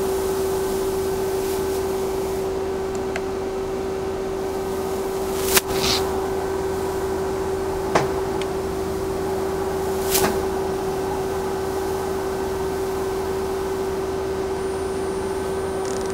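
Mazak Quick Turn Nexus 300-II CNC lathe standing under power with a steady hum, its spindle not turning. A sharp click comes about five and a half seconds in, with two fainter clicks about eight and ten seconds in.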